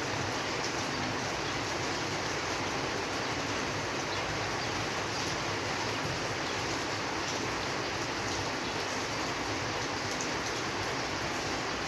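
Steady rainfall: an even hiss with faint scattered droplet ticks.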